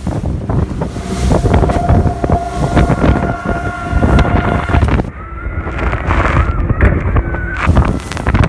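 Strong wind buffeting the microphone aboard a boat at sea. A faint steady whine runs through the first half, and a wavering higher tone comes in the second half.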